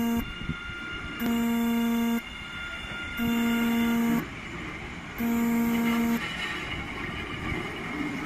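Horn of a new MBTA Orange Line subway train sounding a single note in even blasts of about a second, each a second apart: the end of one blast, then three more. After that comes the steady rumble of the cars rolling past close by.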